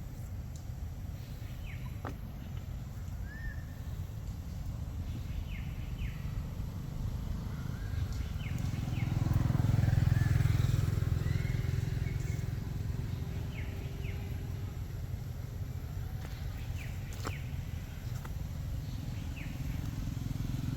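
Low engine rumble that swells about nine seconds in and slowly fades, with short high chirps scattered over it.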